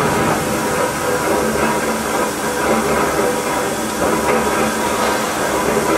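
Steady machinery noise of a hot-forging shop: a continuous hiss and hum with a few faint tones, and no press strike.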